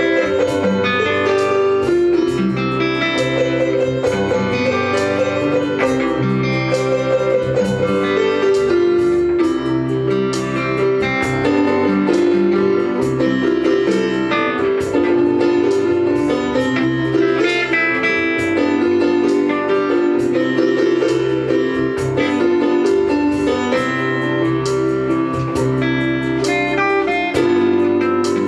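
Acoustic guitar and Casio electronic keyboard playing instrumental music together: quickly picked guitar notes over sustained keyboard chords, at a steady level.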